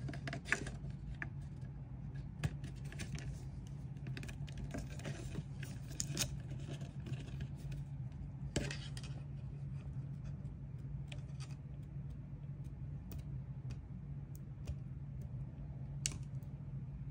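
Small handling noises: scattered light clicks, taps and rustles of plastic LED modules and their wires being pressed down and moved about on a plastic panel, busier in the first half. A steady low hum runs underneath.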